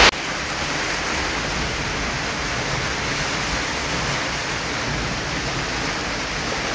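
Steady, even rushing noise of stormy weather outdoors, with low rumbling gusts underneath.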